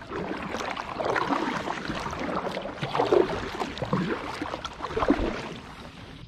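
Kayak paddle strokes splashing in creek water as the kayak is turned around, a stroke about every second, dying away near the end.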